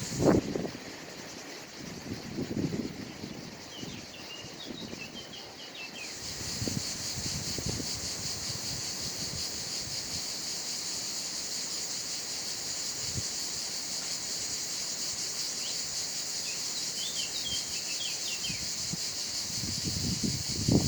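Steady outdoor insect chorus, a continuous high buzz, with short bursts of bird chirping twice and a few soft low thuds.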